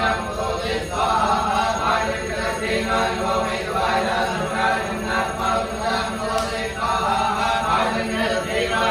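Priests chanting Vedic Sanskrit mantras of a homam fire ritual in a steady, unbroken recitation.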